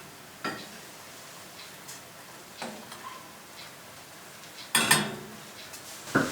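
A few scattered light clicks and knocks, like small objects being handled, with a louder clatter and short hiss about five seconds in.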